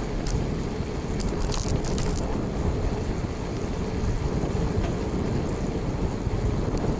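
Steady wind and road noise from a Renault Platinum Light 8 bicycle being ridden, picked up by a bike-mounted action camera. A short cluster of rattling clicks comes between one and two seconds in.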